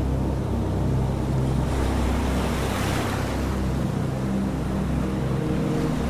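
Ocean surf: a steady low rumble of waves, with one wave washing in and swelling to a louder hiss from about two seconds in, easing after three.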